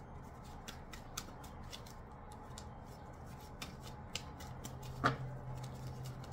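Tarot cards being handled and shuffled: a string of light, irregular card clicks and flicks, with one louder snap about five seconds in.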